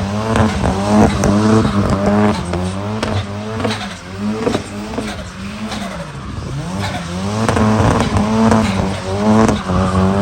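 Mk2 Ford Escort's turbocharged 2.3-litre EcoBoost four-cylinder engine revving up and down over and over, with tyres squealing as the car spins donuts.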